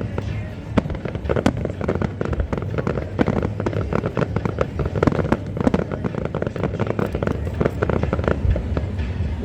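Aerial fireworks going off in rapid succession: a dense, continuous run of bangs and crackling.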